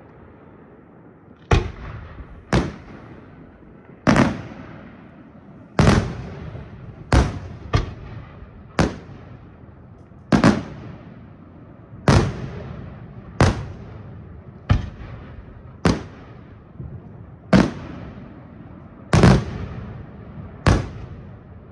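Aerial firework shells bursting in a steady sequence: about fifteen sharp bangs, roughly one every second or so, each trailing off.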